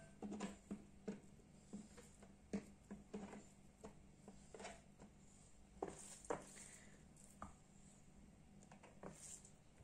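Faint, irregular soft pats and squishes of hands shaping minced meat into picolat meatballs, with a few sharper taps about six seconds in.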